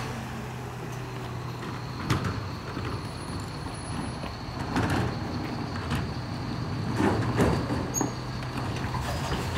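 Mercedes-Benz Econic bin lorry's diesel engine idling steadily with a faint high whine, while a few knocks and clatters come from wheelie bins being wheeled up to its rear lifts.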